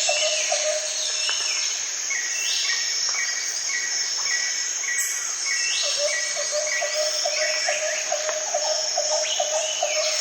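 Jungle ambience sound effect: many bird calls layered over a steady high insect drone. One bird repeats a short note about twice a second through the middle, and a lower trilling call comes back about six seconds in.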